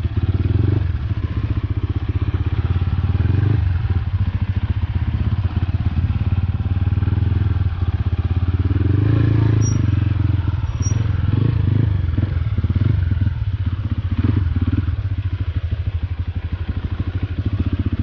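Motorcycle engine running steadily, a fast even beat of exhaust pulses throughout.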